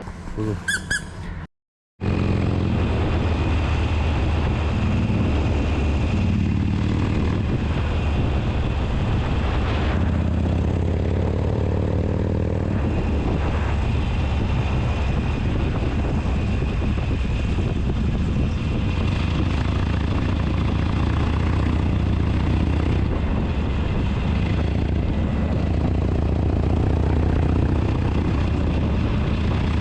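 Twin-cylinder motorcycle engine running steadily under way, with wind and road noise. The sound starts abruptly about two seconds in, after a brief silence.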